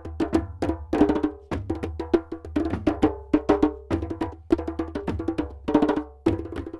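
A drum ensemble playing a fast, driving rhythm of sharp, ringing drum strokes in tight clusters, with a deep sustained bass underneath.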